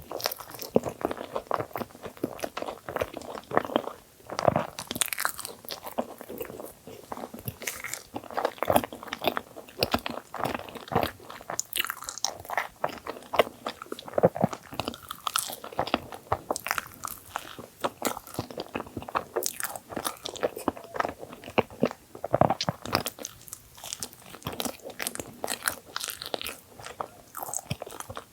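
Close-miked eating of filled half-bagel sandwiches: bites and wet chewing with many irregular small crunches and clicks, one after another.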